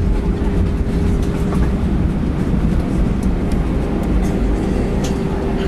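Cabin noise inside an Airbus A319 rolling along the runway just after landing, slowing with its spoilers up: a loud, steady low rumble of engines and wheels, with a steady hum over it.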